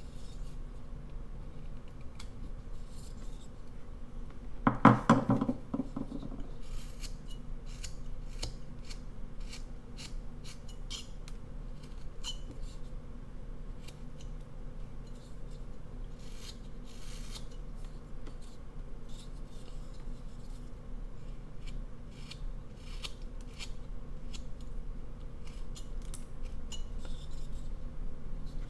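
Carving knife whittling basswood: a run of short slicing cuts, with a brief louder clatter about five seconds in.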